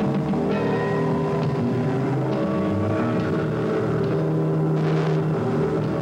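Live progressive rock band playing a slow passage of held, sustained chords over bass notes, the notes changing only every second or so.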